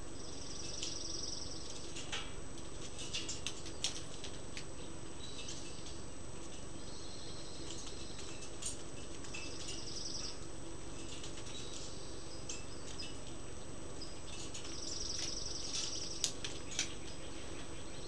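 Acorn woodpecker's bill tapping at a wire-mesh seed feeder in short clusters of sharp clicks, the loudest of them near the end. Under the tapping, a high buzzing trill about a second long recurs every few seconds.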